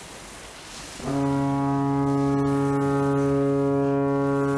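Foghorn sounding one long, steady low blast that starts about a second in, after a faint hiss.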